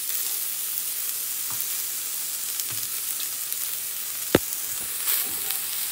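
Diced onions, carrots, and freshly added minced garlic and ginger sizzling in hot oil in a wok, a steady hiss. There is a single sharp tap a little over four seconds in. Near the end, stirring and scraping in the wok begin.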